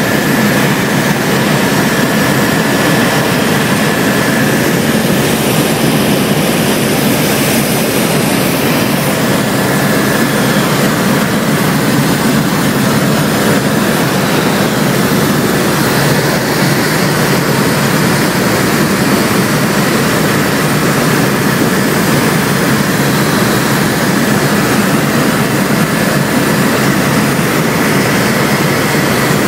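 Steady engine drone of a sightseeing aircraft in flight, heard from inside the cabin, with a thin steady high whine over it.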